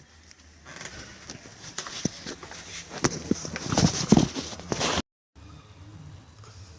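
Aerosol spray paint can being handled and readied for a coat: a string of knocks and rattles over a faint hiss, busiest about three to four seconds in, cutting off suddenly about five seconds in.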